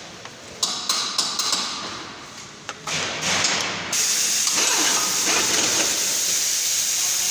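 A few sharp metallic knocks and clinks from tools and parts being handled on a car in a workshop. From about four seconds in, a steady hiss runs on.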